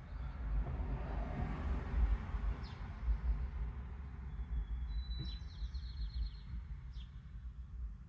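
A passing car's tyre and engine noise swells and fades over a low street rumble, and a small bird gives a quick high trill of chirps a little past the middle.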